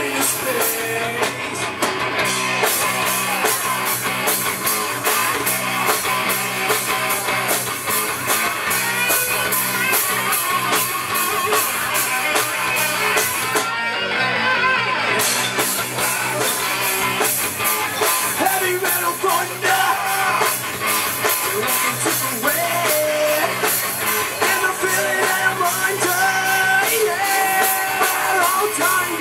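Live rock band playing loud through a PA: distorted electric guitars, bass guitar and drums, with a man singing. About halfway through the cymbals drop out for a moment before the full band comes back.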